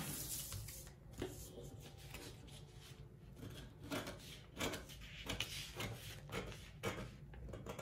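Scissors snipping through a paper pattern in a series of short cuts, with paper rustling as the sheet is handled; the pattern is being slashed along its style line to open it.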